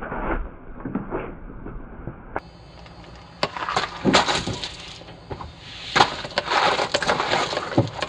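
Crash sound effect of glass breaking: a few dull knocks, then from about two and a half seconds in a run of sharp shattering and clattering crashes.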